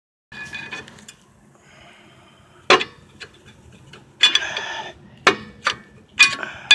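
Hand tools clinking and scraping against a seized rear brake caliper as it is worked loose. Single sharp metallic clinks, a short rattling scrape past the middle, then several quick taps near the end.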